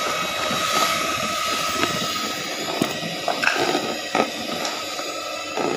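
Electric hand mixer running in a bowl of thick ground-lentil batter, beating air into it so it turns light and puffy, with a steady motor hum and several short knocks and clatters in the second half.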